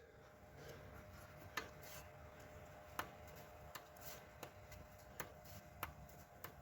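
Near silence: faint room tone with a few scattered light clicks and taps.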